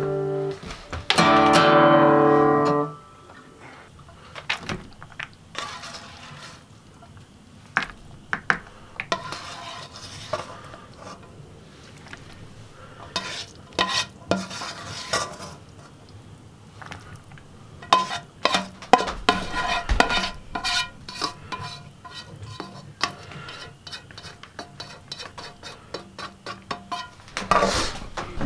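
An acoustic guitar chord strummed and left ringing, cut off about three seconds in. Then a spoon clinking and scraping against a black metal pan as food is dished out into paper bowls, in irregular taps and scrapes.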